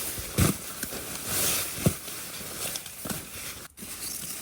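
Handling noises: rustling with a few dull knocks.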